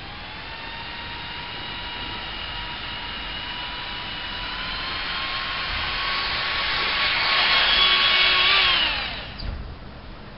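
Electric ducted fan of a radio-controlled car, driven by a 500 W brushless motor, whining steadily while slowly climbing in pitch and growing louder. About nine seconds in, the pitch drops sharply and the sound fades away.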